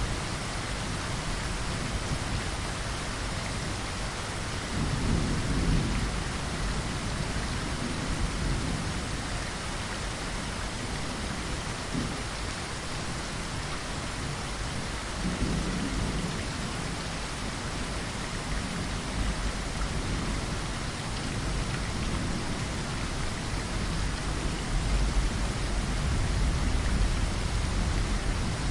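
Steady rain pattering against a window, with low rumbles of thunder swelling up about 5 seconds in, again about 15 seconds in, and building toward the end.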